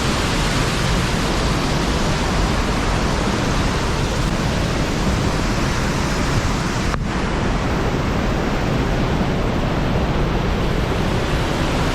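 Steady, loud rushing noise with no distinct events, cutting out for an instant about seven seconds in.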